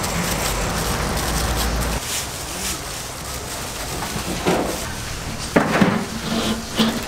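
Open-air market background: a steady low rumble, then quieter mixed noise with a few light knocks and clatter from work at a food stall.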